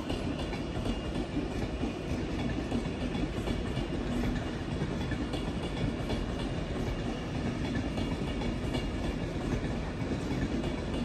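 A train running past on the track, a steady noise of wheels on rails.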